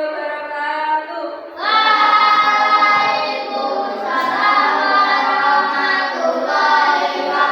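A group of children singing together in unison, in long held notes, growing louder a little under two seconds in.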